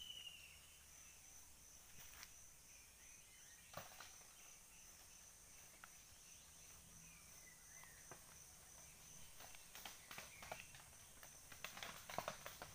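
Near silence: faint forest ambience with a steady high insect drone, a few faint chirps, and scattered clicks and rustles that grow busier near the end.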